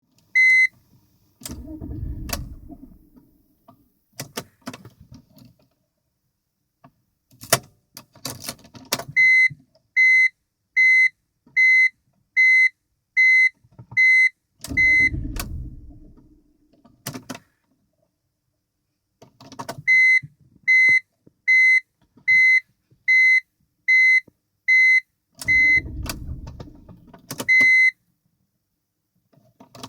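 Inside a BMW E46 that won't start: three short low rumbles a few seconds apart, with sharp clicks around them. Two long runs of a steady electronic warning chime beep about twice a second.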